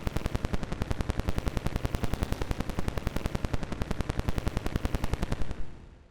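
Heavily edited remix of an Android alarm tone: many stacked, pitch-shifted copies of the tone stuttering in rapid, even pulses. Near the end it breaks off and fades out.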